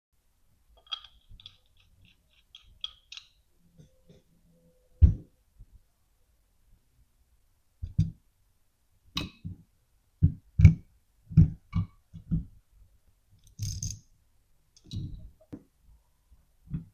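KME knife sharpening system being assembled by hand: a quick run of light clicks, then a series of separate knocks and thuds as its base and parts are set down and fitted together on a hard surface.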